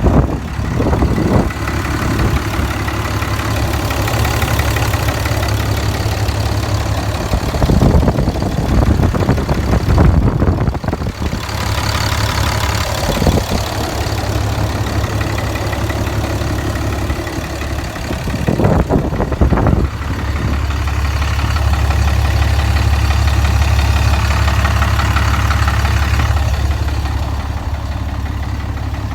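2010 Cummins 6.7 L inline-six turbo diesel with its emissions equipment deleted, idling steadily with a knock that the owner suspects comes from the bottom end. A few brief louder bumps come and go over the idle.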